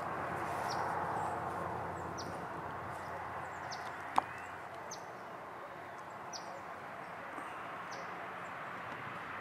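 Woodland ambience: a bird's short, high, down-slurred chip notes repeating about once a second over a steady background hiss, with a single sharp click about four seconds in.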